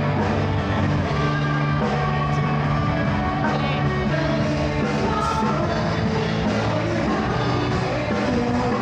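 Rock-style music with a singing voice, playing steadily throughout.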